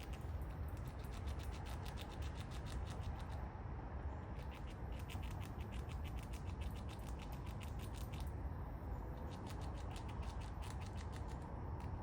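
A squirrel gnawing and chewing its food: rapid fine crunching clicks at about eight a second, in runs of several seconds with short pauses, over a steady low rumble.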